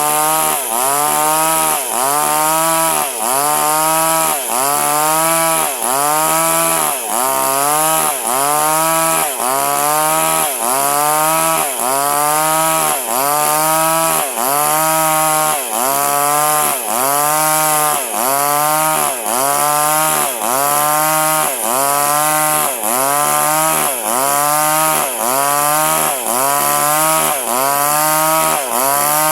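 Small chainsaw cutting durian wood into timber, its engine running at high revs with the pitch rising and falling in a steady rhythm about once a second.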